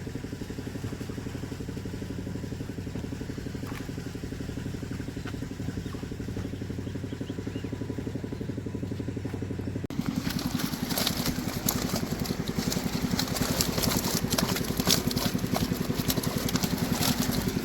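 A small engine running steadily with an even pulse. About ten seconds in, the sound changes abruptly: the engine is louder and dense crackling and clattering come in over it.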